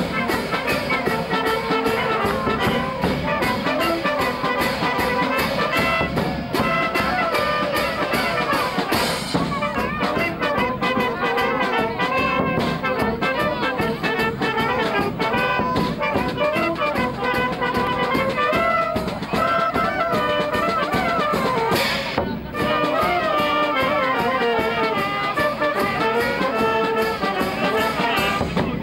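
Brass band music, with trumpets and trombones over a steady beat. The sound breaks up briefly twice.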